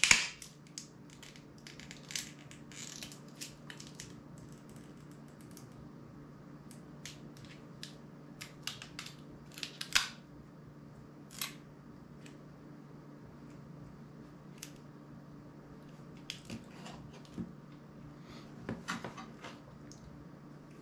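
Scattered small clicks, taps and scrapes of tweezers and fingers working on a phone's opened metal frame and internal parts while it is taken apart. The loudest clicks come at the very start and about ten seconds in, over a low, steady hum.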